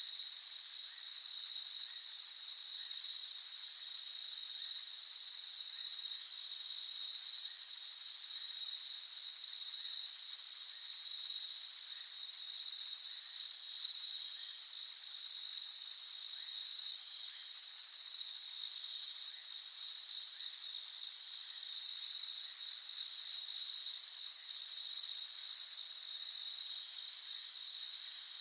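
Crickets chirping together in a steady, high-pitched chorus with a regular pulse. A second, higher and thinner trill from another cricket starts and stops every few seconds.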